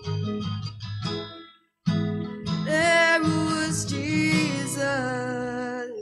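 Acoustic guitar strummed in chords, briefly cutting out to silence just before two seconds in, then coming back strongly under a woman's voice holding a long, wavering sung note.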